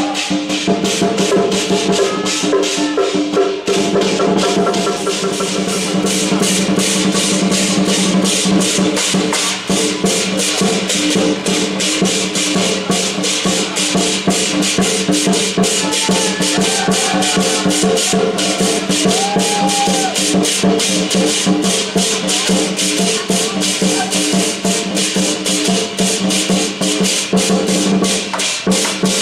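Dragon-dance percussion music: rapid, unbroken drum and cymbal beats over steady sustained tones.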